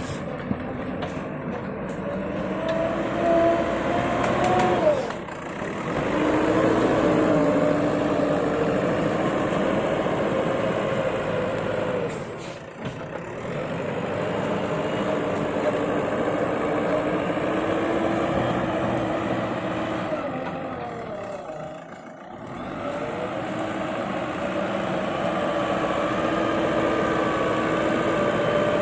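Excavator's diesel engine running under working load, its pitch rising and sagging as the machine digs and swings, with three brief drops in level.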